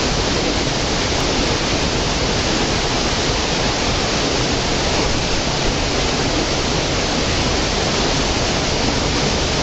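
Small stream cascading over mossy rocks into a pool: a steady, unbroken rush of running water.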